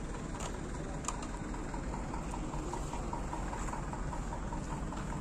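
Steady low rumble of idling truck engines, with a few sharp clicks and a faint quick ticking in the middle.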